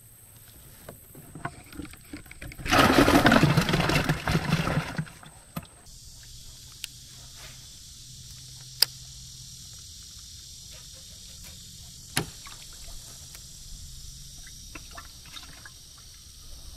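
A loud burst of water splashing and sloshing lasts about two seconds, as a just-caught bass goes back into the water beside the kayak. It is followed by a steady high hiss with a few sharp clicks.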